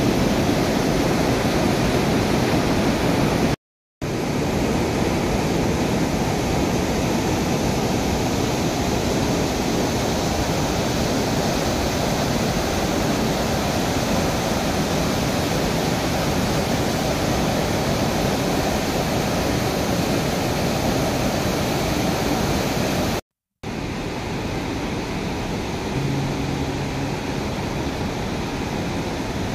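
Steady rush of river water pouring over a low weir, broken twice by a split second of silence.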